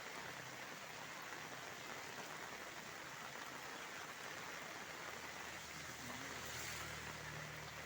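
Steady rain falling, an even hiss. A faint low hum comes in during the second half.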